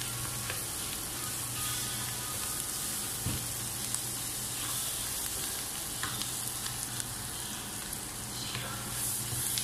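Chopped onions and vegetables sizzling as they fry in a pan, stirred with a wooden spatula that scrapes and taps against the pan now and then.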